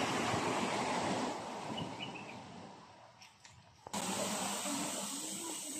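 Rushing outdoor noise that fades out about three seconds in. About four seconds in, a brighter, steady hiss starts abruptly.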